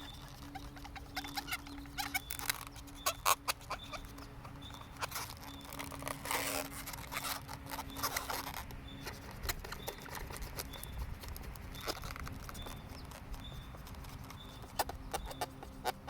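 Latex twisting balloons being handled, with scattered small clicks and rubbing noises; one longer rub about halfway through.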